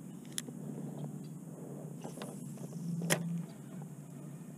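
Spinning reel and rod being handled, giving a few sharp clicks about half a second in and again about three seconds in, over a steady low background hum.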